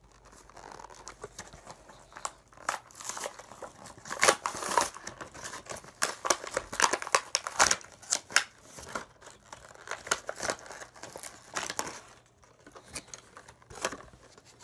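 Tech Deck fingerboard packaging being opened by hand: crinkling and tearing in irregular spurts, busiest in the middle.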